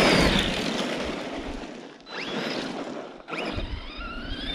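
Arrma Outcast 4S RC truck's brushless electric motor whining up in pitch under hard throttle while its tyres spray gravel in a loud hiss. The hiss fades as it lets off, then it punches the throttle again about two seconds in and once more near the end.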